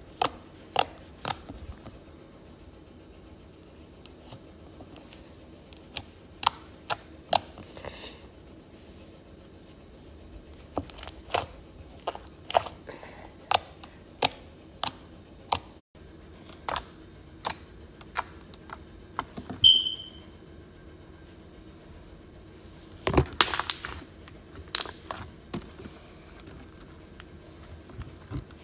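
Fingers poking thick frosted sugar cookie slime, giving sharp irregular pops and clicks as trapped air bursts, in clusters with pauses between. One short high squeak comes about twenty seconds in.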